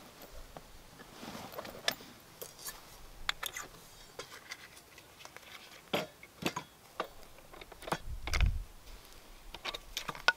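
Rustling and scattered clicks and clinks of gear being handled: a backpack being unpacked and a hatchet and a saw with its metal parts lifted out and hung on a wooden stand, with a dull thump about eight seconds in.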